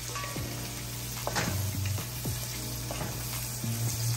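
Chopped scallion, bell pepper, garlic and thyme sizzling in melting butter in a pot, stirred with a wooden spatula.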